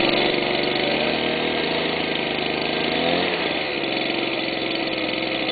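Home-built jet engine for a Puch Maxi moped, running at idle on its first run. It runs steadily, its tone shifting about three seconds in.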